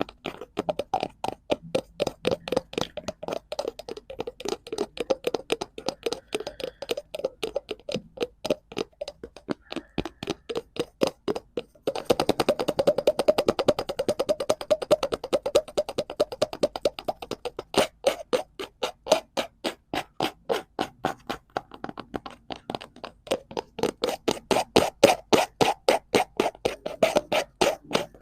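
Rapid tapping on a cardboard prop, about five taps a second, in long runs with a few short breaks.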